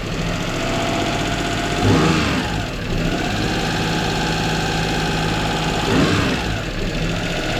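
Toyota Duet engine running at a high idle, revved up and back down briefly twice, about two seconds in and again about six seconds in. The idle is high and erratic, which the owner puts down to air being drawn in somewhere, a suspected intake leak.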